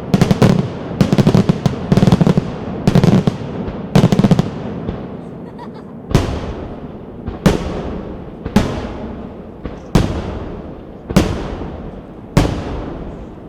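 Fireworks display: a rapid volley of crackling bursts for the first few seconds, then six single loud shell bangs about a second and a quarter apart, each trailing off in echo.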